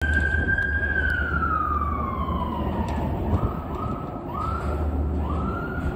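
An emergency vehicle siren: one long tone sliding slowly down in pitch, then several short rising swoops, over a low rumble of wind on the microphone.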